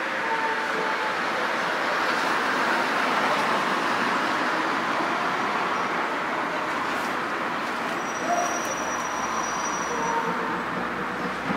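Steady rushing din of a street during a protest, with a few faint distant calls rising out of it now and then.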